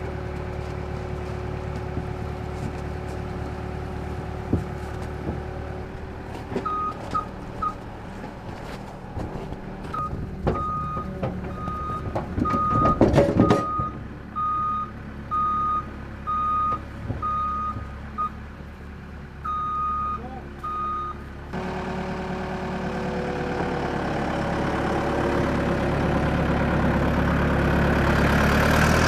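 Tracked skid-steer loader's diesel engine running, its backup alarm beeping about once a second with a few pauses while it reverses. About thirteen seconds in there is a loud clattering burst, the loudest moment. In the last several seconds a louder mechanical noise rises steadily.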